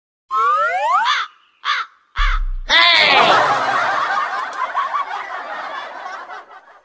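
Comedy sound effects dubbed over the picture: a few short rising, whooping cries, then a long burst of cackling, laughter-like sound that slowly fades out.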